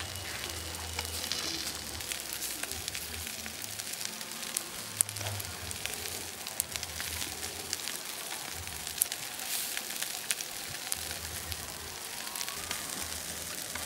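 Open fire crackling steadily, with scattered sharp pops.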